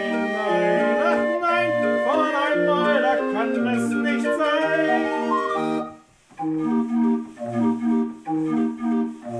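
Raffin R31/84 barrel organ playing a folk-song tune with pipe melody, chords and bass. About six seconds in the sound drops out for a moment just after a rising glide, then the tune resumes in short, detached chords.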